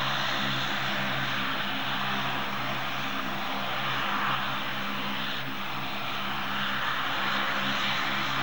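Boeing KC-135R Stratotanker's four CFM F108 turbofan engines at takeoff power as the jet climbs away after liftoff: a steady rushing jet noise.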